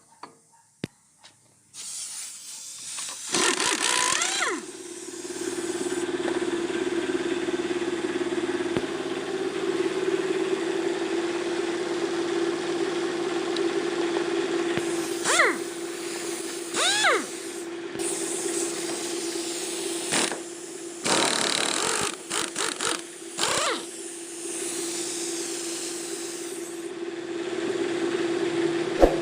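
A machine running steadily with a constant hum, cutting out briefly several times, with a few short sweeping squeaks over it.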